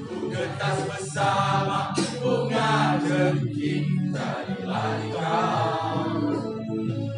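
Music with a group of voices singing together, held notes changing about once a second.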